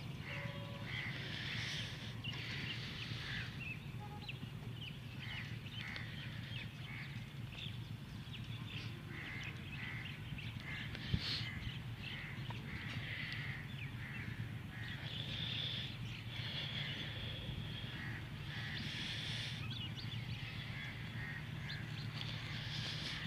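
Crows cawing again and again, over a steady low rumble.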